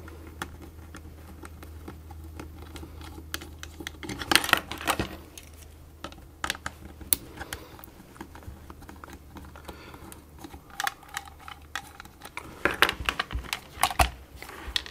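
A small screwdriver undoing the screws in the underside of a plastic ball mouse, then the mouse's plastic shell being handled and worked open: scattered light plastic clicks and taps, busiest about four seconds in and again near the end, over a low steady hum.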